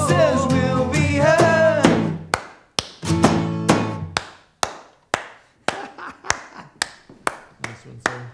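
A male voice sings the end of a line over a strummed acoustic guitar. After about two seconds the singing stops and the guitar plays a chord alone. Sharp percussive taps follow, about twice a second.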